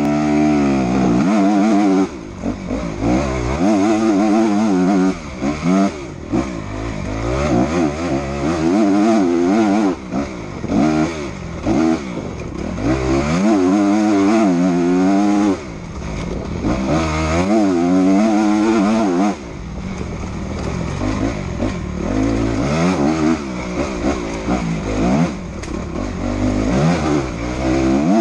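Enduro motorcycle engine revving hard at race pace, its pitch climbing and dropping again and again through throttle and gear changes, with brief dips where the throttle is closed. A low wind rumble runs underneath.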